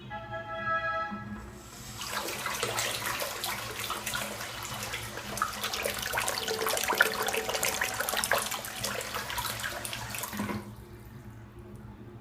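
A brief electronic tone, then water gushing and splashing for about eight seconds from the DC50E-24150S micro brushless DC pump's outlet. The water stops suddenly when the pump is switched off.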